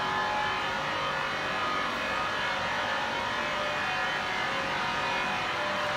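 Vacuum emulsifier mixer equipment running steadily: an electric motor hum with a whine of several steady tones from the inline high-shear homogenizer and its pumps.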